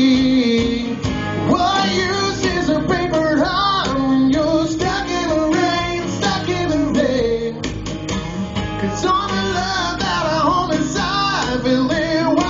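Live acoustic rock performance: a man singing a wavering, bending melody over strummed acoustic guitar and electric bass guitar.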